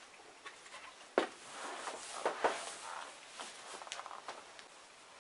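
A sharp knock about a second in as a plastic Carrera lap timer unit is set down on a hardboard sheet, then another knock, shuffling and a few light clicks and steps.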